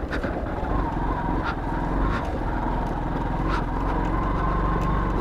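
Motorcycle engine running steadily while riding over a rough, muddy track, with a faint steady whine over it and a few light clicks.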